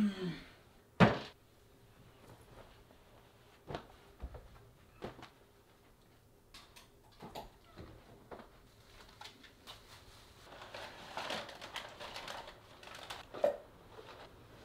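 Scattered knocks and clicks of things being handled in a small room, opening with a short falling creak and a loud thump about a second in, then a stretch of rustling and scraping near the end.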